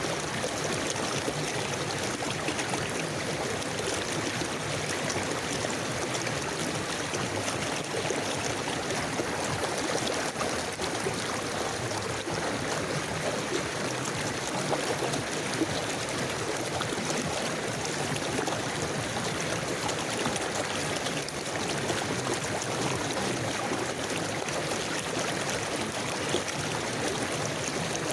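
River water flowing steadily, a continuous rushing with trickling and gurgling.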